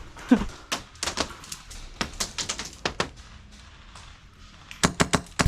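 Airsoft guns firing: irregular sharp snaps, with a quick string of louder shots near the end.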